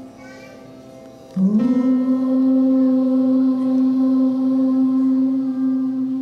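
Slow, quiet music; about a second and a half in, a note slides up into one long, loud held tone that lasts about five seconds.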